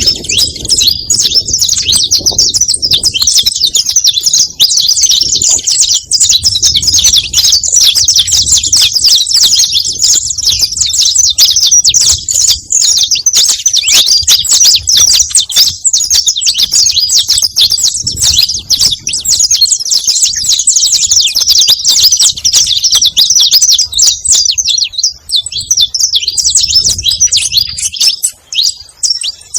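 Saffron finch (canário-da-terra) singing: a continuous run of rapid, high chirping notes, barely pausing, with a brief lull near the end.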